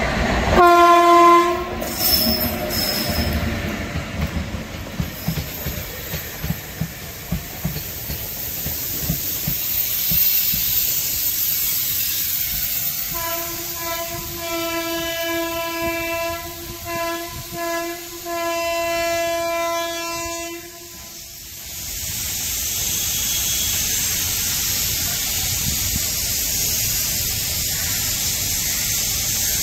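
Indian Railways electric locomotive horn sounds a short blast as the train approaches, then its passenger coaches roll past with wheel clatter. About halfway through, the horn sounds again as a long series of blasts with short breaks, lasting some eight seconds: the triple-horn signal that the alarm chain has been pulled. The coaches keep rolling by afterwards.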